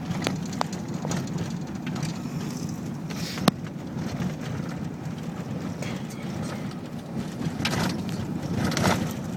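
Chevy Tahoe driving slowly, heard from inside the cabin: a steady low road and engine rumble with scattered knocks and rattles, one sharp knock about three and a half seconds in.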